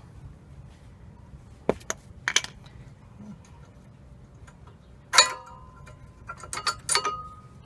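Brake pads' metal backing plates clinking and tapping as they are worked out of the caliper bracket and handled. A few scattered clicks, then two sharper clanks about five and seven seconds in, each ringing briefly.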